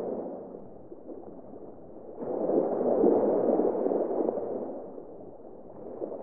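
Muffled underwater water ambience, a dull rushing wash that swells about two seconds in and fades again near the end.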